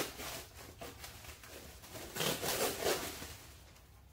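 Packaging being handled: a few short rustles and scrapes of cardboard and plastic as a small parts box is lifted out, the loudest right at the start and again about two to three seconds in.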